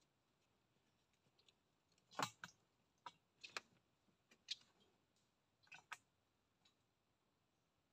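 Faint, sharp clicks, mostly in quick pairs, coming roughly every second for a few seconds against near silence: handling noise from a hand-held fishing pole.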